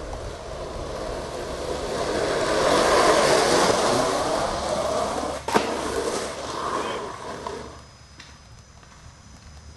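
Skateboard wheels rolling on pavement, growing louder as the board passes close. There is a single sharp clack about five and a half seconds in, and the rolling fades out about two seconds later.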